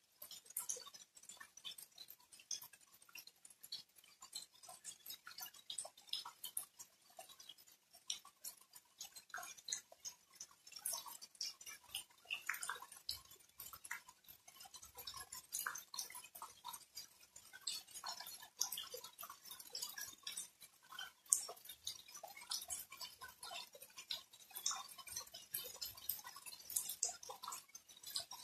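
Rain falling on a lawn and wet, puddled ground: a dense, irregular patter of individual drops, with scattered sharper ticks from drops landing close by.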